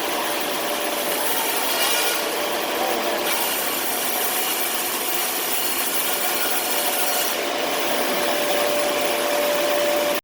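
OX SB-800 sawmill's blade cutting steadily through wood, a continuous rasping saw noise with a steady tone running under it.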